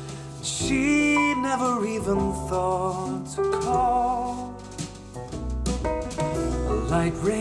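Music played back through a pair of KRK Rokit 7 G4 studio monitors and recorded in the room, a melody gliding in pitch over a sustained deep bass.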